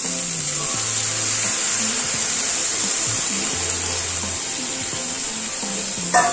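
Water being poured into a hot kadai of fried masoor dal and spice paste, hissing and splashing as it is stirred in, over soft background music. A short knock sounds near the end.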